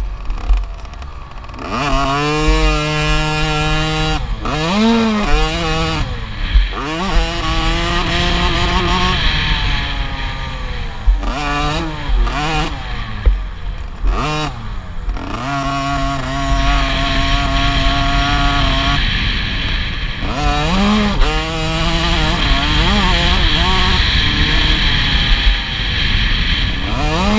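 50cc two-stroke motocross bike engine, heard from on board while racing: it revs up in rising sweeps, holds, then drops off the throttle and picks up again many times through the corners and jumps. A low rumble of wind on the microphone runs underneath.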